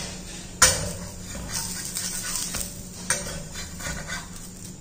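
Flat metal spatula scraping and knocking against a metal tawa, a handful of separate strokes, the sharpest about half a second in and again around three seconds in, as it is worked under a jowar roti to loosen it for flipping.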